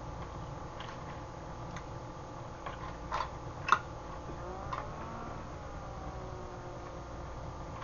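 A metal utensil clinking a few times against a stainless steel pot, the loudest click a little past three and a half seconds in, over a steady hum.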